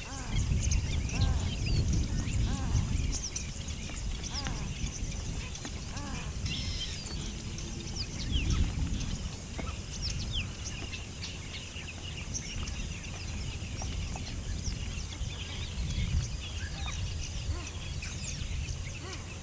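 Birds chirping and calling, many short chirps throughout, over a low rumble that is loudest in the first few seconds.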